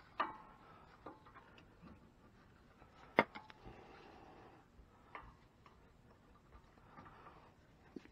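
Faint, scattered clicks and knocks of a hand tool on the lower mounting bolt of a new Bilstein 5100 shock absorber, with one sharper metal clack about three seconds in.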